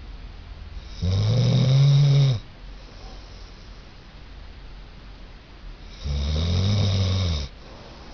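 Elderly golden retriever snoring in its sleep: two long, pitched snores, each about a second and a half, roughly five seconds apart.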